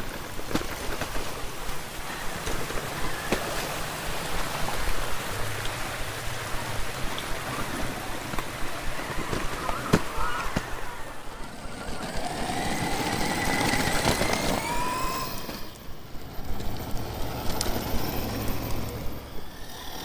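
Electric Arrma Kraton 8S RC truck towing a loaded wagon, its tyres and drivetrain rolling over concrete and then grass with a steady rushing noise. There is a single sharp knock about halfway through.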